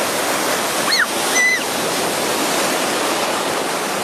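Sea surf breaking and washing through shallow water, a steady rushing. About a second in, a child gives two short, high-pitched squeals.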